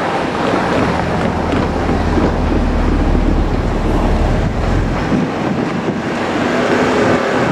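JR Kyushu 817 series electric train running past, a steady rumble of wheels on the rails with scattered clacks. The deep rumble eases off about five seconds in.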